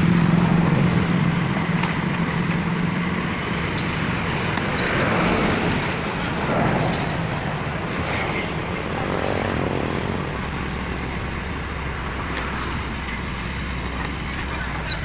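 Heavy diesel engine running, with a steady low drone that is strongest for the first few seconds and then eases into a rougher rumble.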